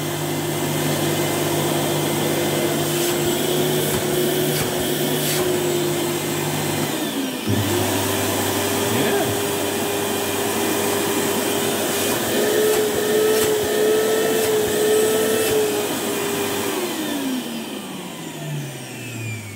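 Hoover Jet 1000 Twin Speed compact vacuum cleaner running: the motor's steady whine over the rush of air. About seven seconds in it cuts out for a moment and comes back at a slightly higher pitch, as it is switched to its second speed. Near the end it is switched off and winds down with a falling whine.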